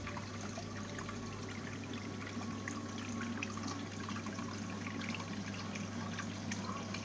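Water trickling steadily as a marine aquarium gravel siphon draws up water and sand, with scattered faint ticks and a constant low hum underneath.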